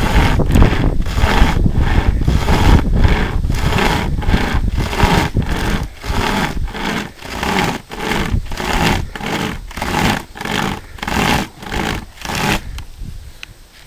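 Homemade pocket chain saw, a cut-down Stihl chainsaw chain pulled back and forth by its strap handles, rasping through a tree limb at about two strokes a second and stopping about a second before the end. Wind on the microphone in the first few seconds.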